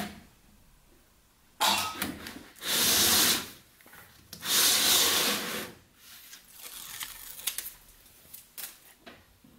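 Rubbing and scraping as a cylindrical-cell battery pack and a plastic insulation sheet are handled on a wooden workbench: a short scrape, then two longer rubs of about a second each, followed by a few light knocks and clicks.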